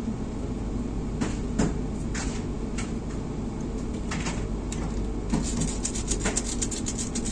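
Steady low rumble of a moving vehicle heard from inside, with scattered knocks and rattles, then a fast run of clicks in the last two seconds.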